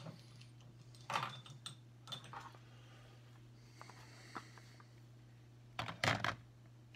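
Small hard makeup items clicking and rattling as they are handled, in three short clusters, the loudest near the end, over a steady low hum.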